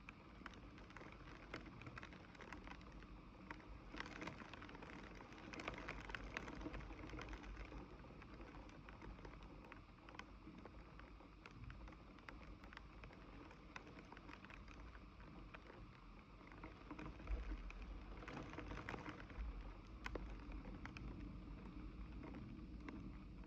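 Rain falling, with many small drops tapping; it swells twice for a few seconds.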